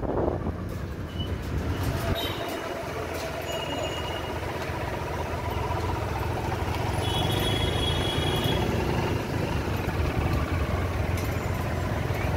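Street traffic heard from a motorcycle that has slowed almost to a stop: a steady low engine rumble, with two brief high squeals, about two and seven seconds in.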